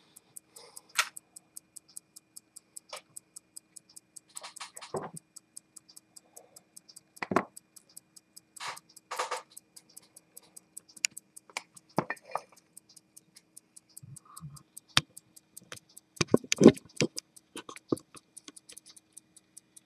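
Mechanical pocket watch movement ticking steadily, about five ticks a second, close up. Louder irregular clicks and knocks break in now and then, the loudest a few seconds before the end.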